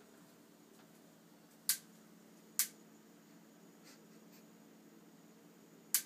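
Gas range's electronic spark igniter ticking on its own at uneven intervals: sharp single ticks, two about a second apart and another near the end, with fainter ones between. The owner suspects the electronic ignition is faulty.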